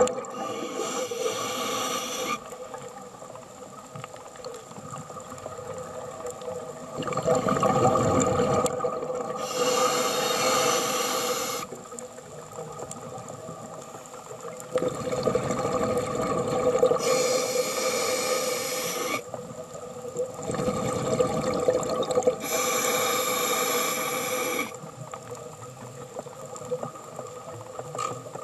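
Scuba breathing underwater through a regulator: four bubbling exhalations of about two seconds each, some six to seven seconds apart, with inhalation rushes between them over a steady hum.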